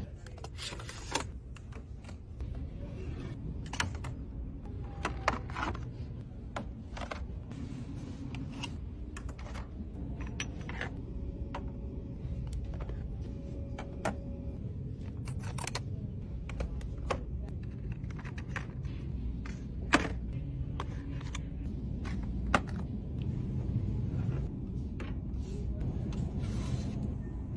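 Scattered clicks and knocks of products being picked up and set down in a plastic shopping cart, over a low steady rumble.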